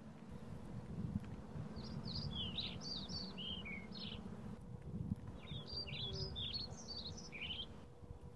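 A small songbird singing two phrases of quick, high, downward-slurred chirps, a few seconds apart, over a steady low background noise.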